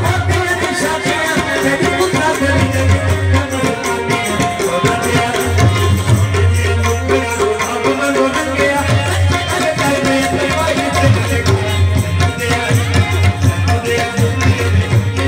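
Live Punjabi folk music from harmonium and drums: a steady, fast drum rhythm runs under the harmonium's held notes, with deep drum strokes coming and going.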